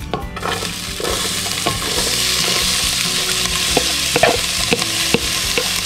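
Diced onions, jalapeños and garlic sizzling in hot olive oil as they are scraped into a stainless steel pot, the sizzle starting about half a second in. A wooden spatula knocks lightly against the bowl and pot a few times near the end.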